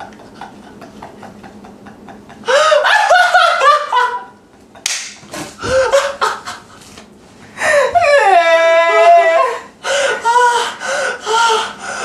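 Two men laughing hard in repeated loud bursts. The laughter starts about two and a half seconds in after a quieter start.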